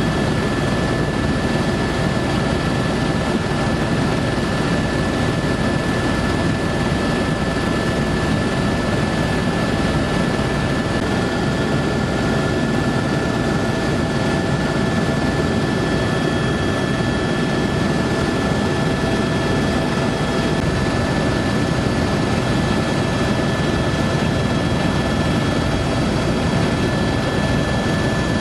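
Helicopter in steady flight heard from inside the cabin: a constant engine and rotor drone with a steady high whine above it.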